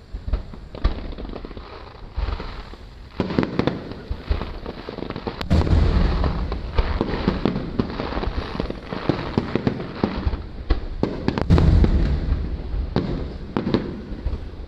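Aerial fireworks display: shells bursting one after another in a dense run of booms and crackling, thickening and getting louder about three seconds in.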